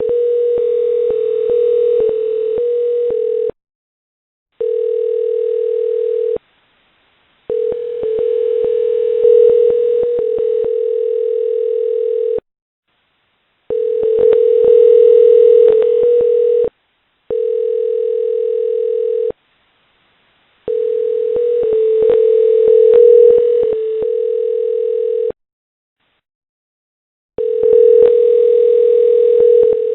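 A steady telephone tone over a phone line, cutting in and out in irregular stretches of about two to five seconds with short silent gaps, and scattered clicks on the line.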